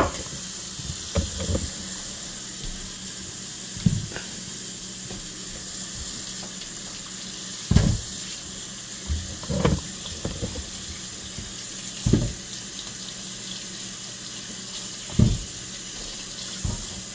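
Kitchen faucet running steadily into a sink as potatoes are rinsed under it, with a handful of short dull knocks as they are handled.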